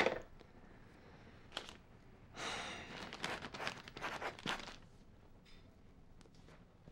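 A sigh, then newspaper pages crinkling and rustling with small scratchy handling sounds for about two seconds, in a small quiet room.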